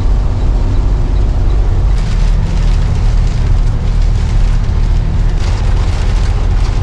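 Semi truck's diesel engine heard from inside the cab, running steadily downhill with the engine brake on its first level: a loud, steady low rumble.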